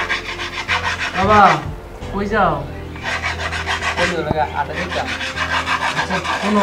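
Rapid, even rasping strokes, like filing or scraping, several to the second. A few short pitched sounds rise and fall over it.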